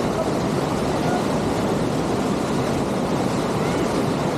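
Waterfall rushing: a steady, unbroken noise of falling water, strongest in its low and middle range.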